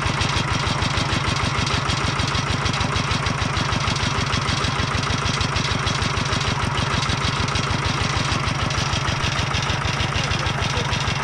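Farm tractor engine running steadily, with an even, rapid beat of firing pulses.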